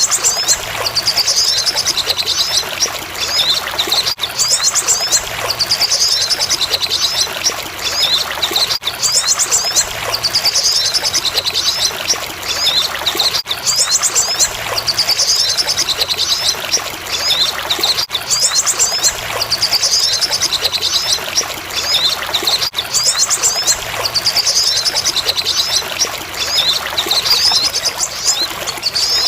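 Masteran recording of a sogon songbird: rapid high chirping trills, repeating as a loop about every four and a half seconds, over a steady trickle of running water.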